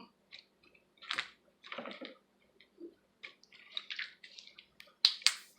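Slime being squeezed and handled by hand: short, irregular wet squishing and popping, with a couple of sharper clicks near the end.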